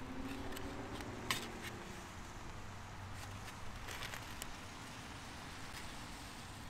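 Handling noises from a styrofoam takeout clamshell and a burger: a sharp click about a second in, and a few softer clicks around four seconds in as the burger is bitten. A low steady rumble of traffic runs underneath.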